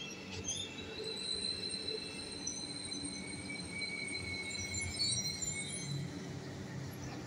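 Marmaray electric commuter train braking into a station, slowing to a stop. Its wheels and brakes squeal in several high-pitched tones over a low rumble.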